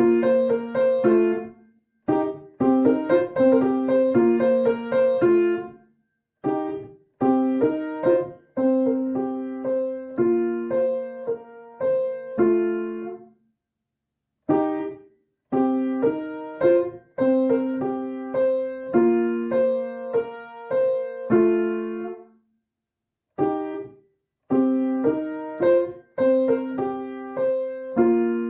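Piano playing an arrangement of an iPhone ringtone slowly, in short repeated phrases of several notes at once, with brief silences between the phrases.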